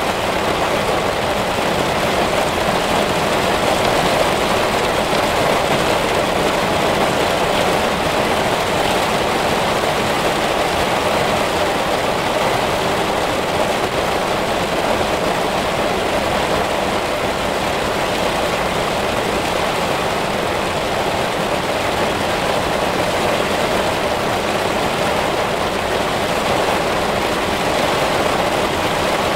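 Heavy rain falling steadily, an even, unbroken downpour.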